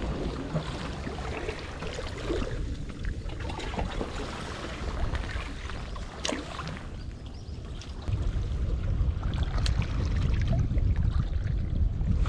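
Wind rumbling on the microphone over the wash of the sea, growing louder about eight seconds in, with a few sharp ticks.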